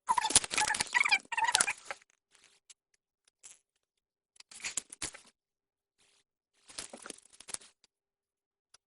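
Rustling and clattering of small objects being handled and moved about: a busy two-second spell at the start, then two shorter spells in the second half.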